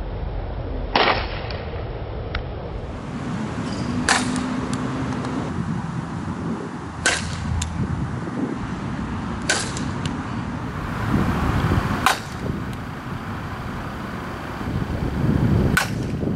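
Softball bat hitting softballs in batting practice: six sharp cracks, one every two to four seconds.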